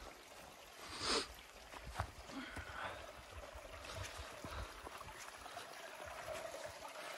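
Faint footsteps on grassy, stony ground beside a small upland stream trickling in a rocky gully. A short, louder rush of noise comes about a second in.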